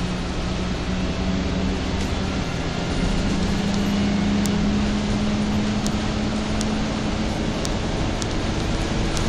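Steady rumble and engine hum of a moving vehicle heard from inside. The engine note rises a little a few seconds in and then eases back, with a few faint clicks.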